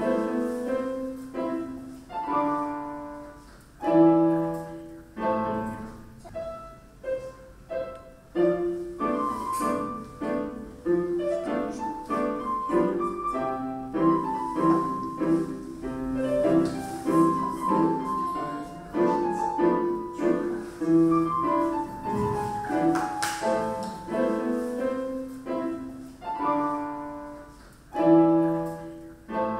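Piano music in a classical style, chords and melody notes struck and left to ring.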